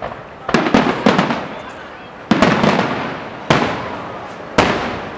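Aerial fireworks going off: a quick cluster of sharp bangs about half a second in, then single bangs roughly every second, each trailing off in a rolling echo.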